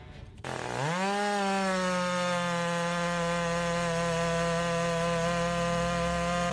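Power saw motor starting up about half a second in, its pitch rising over about a second to a steady high speed, then running evenly.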